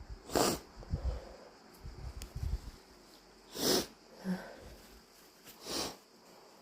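A person sniffing through the nose three times, a few seconds apart, each sniff short and breathy.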